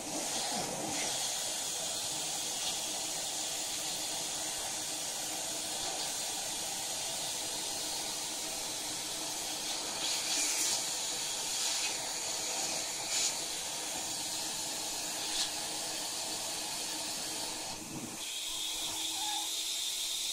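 Central vacuum hose and wand sucking air with a steady rushing hiss while a cat's fur is pressed against the open nozzle, with a few short louder rushes in the middle. Near the end the tone of the suction changes and turns steadier.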